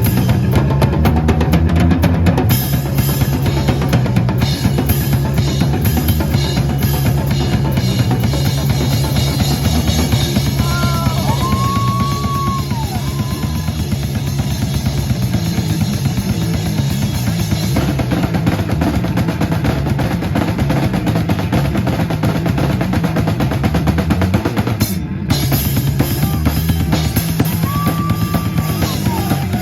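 Live rock band playing an instrumental passage, the drum kit driving hard over a moving bass line, with a brief break near the end before the band comes back in.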